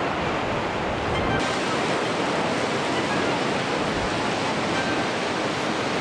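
Wildfire burning through forest: a steady rushing noise of the flames, growing brighter and hissier about a second and a half in.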